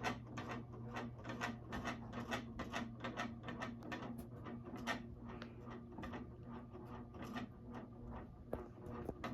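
Hampton Bay Littleton ceiling fan running: a steady motor hum with a rapid, slightly uneven clicking of about four to five clicks a second, the mechanical noise the owner was trying to reduce.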